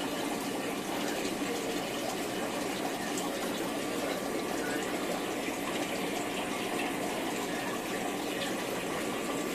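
Aquarium aeration running: a constant rush of churning water and rising air bubbles in the tank.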